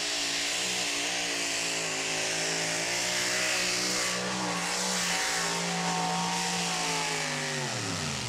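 Modified two-wheel-drive pulling truck's engine running at high revs under full load as it drags the weight-transfer sled, its pitch wavering slightly. Near the end the engine note falls sharply.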